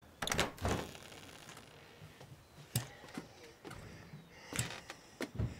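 A door being unlocked and opened: a quick run of clicks and knocks from the lock and handle, then single clicks and knocks spread over the next few seconds as the latch goes and the door swings open.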